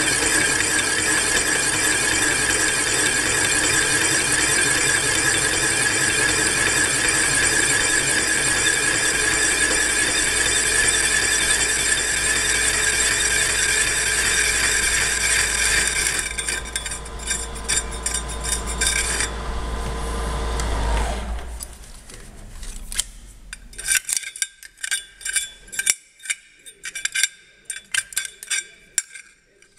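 Boring head cutting the hole in a thin steel electrical box cover with a steady high-pitched squeal, the quill fed by hand through an interrupted cut. About 16 seconds in the squeal turns patchy, and about five seconds later the milling machine's spindle winds down. Near the end come a run of light metallic clinks and taps.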